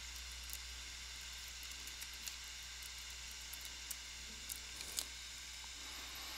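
Steady microphone hiss and low hum, with faint, irregular clicks of computer keyboard keys being typed.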